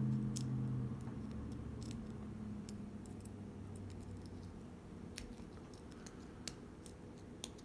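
Pick and tension wrench working the pins of a small 5-pin sliding garage door lock: scattered light metallic clicks and scrapes as the pins are set.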